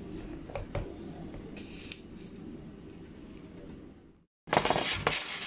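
Gloved hands mixing marinated lamb in a stainless steel pot, with soft squishing and a few light knocks. The sound cuts out briefly about four seconds in, then comes back louder.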